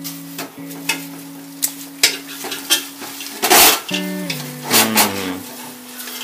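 Metal spoon clinking and scraping against steel cookware as jaggery and coconut pieces are added to water in a steel wok and stirred, with a louder scrape about halfway through.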